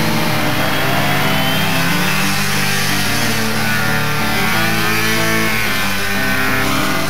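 Snowmobile engine revving up and down, its pitch rising and falling, under a rock song soundtrack.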